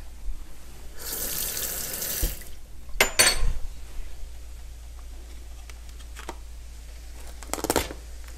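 A kitchen tap runs for about a second and a half and is shut off, followed about three seconds in by a quick cluster of sharp clattering knocks. A short scraping rustle comes near the end.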